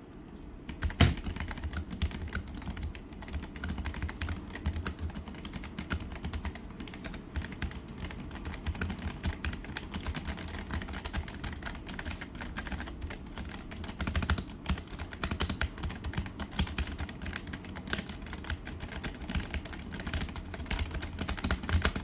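Continuous fast typing on an NYK Nemesis Saber MKN-02 mechanical keyboard fitted with Outemu brown switches, a steady clatter of keystrokes that starts about a second in.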